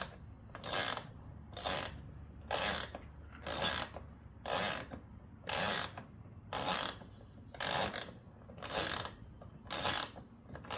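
Ratchet wrench loosening the wheel bolt on a toy car, clicking through a short rasping stroke about once a second.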